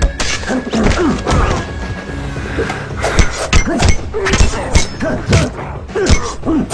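Film fight soundtrack: a rapid run of punch and block impact effects, with grunts and shouts from the fighters, over a music score.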